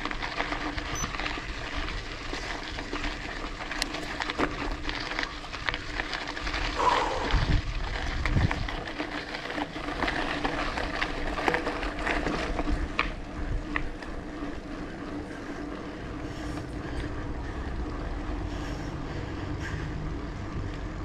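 Bicycle riding noise: tyres on the road and wind on the microphone, with scattered clicks and knocks and a faint steady hum.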